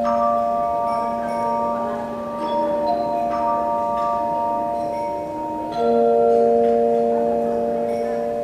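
Tone chimes ringing in sustained chords, the closing bars of the piece. A fresh, louder chord is struck about six seconds in and rings on as it fades.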